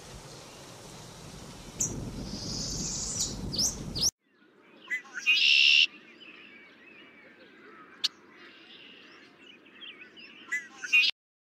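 Small songbirds chirping and calling in response to pishing: a person's mouth-made 'p' followed by a drawn-out shushing hiss, twice, used to draw the birds in by imitating an alarm call.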